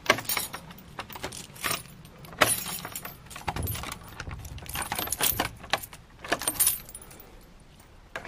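A bunch of keys jangling and clinking in a string of short bursts, with sharp clicks, as a lock is worked open; the loudest clinks come right at the start and about two and a half seconds in, and it quietens near the end.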